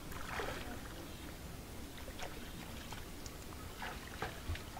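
Faint sloshing and a few soft, scattered splashes of shallow pond water stirred by people wading and fishing.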